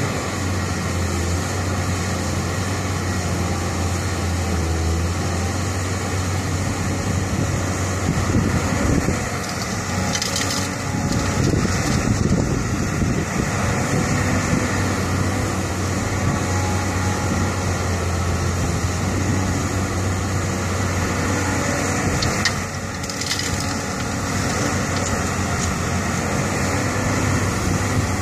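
Caterpillar 320 hydraulic excavator's diesel engine running steadily under load as it works through a loading cycle, with stretches of crunching and rattling as soil and stones are dug and dropped from the bucket into the steel bed of a ten-wheel dump truck.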